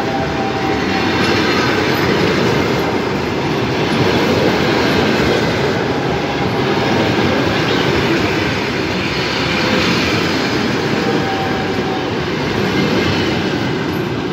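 Russian passenger train coaches rolling slowly past as the train departs the station: a steady rumble of steel wheels on the rails with a clickety-clack over the rail joints.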